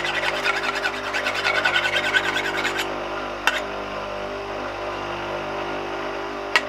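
Steel chisel blade rubbed quickly back and forth on a hand-held flat hone to take off the burr left by grinding, a rapid scratching that stops about three seconds in. A bench grinder's motor hums steadily underneath, and two sharp clicks come later.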